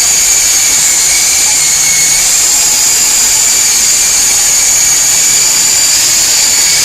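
S33 remote-control toy helicopter in flight, its small electric rotor motors giving a steady high-pitched whine that wavers slightly in pitch.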